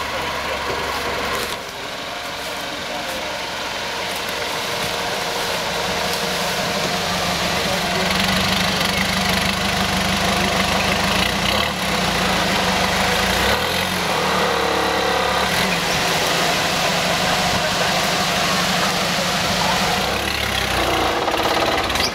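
Off-road vehicle engine running, growing louder over the first several seconds and then holding steady.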